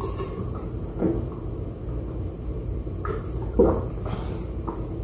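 A person drinking from a plastic water bottle: a few short, soft gulping and bottle-handling sounds over a steady low hum.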